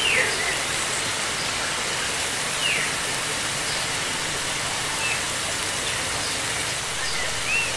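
Steady hiss of running water in a tropical glasshouse, with a few short, falling chirps from small birds, the clearest about a fifth of a second in, mid-way, and near the end.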